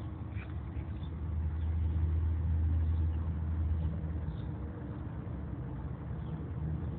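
A vehicle engine's low, steady rumble, growing louder for a couple of seconds midway and then easing back.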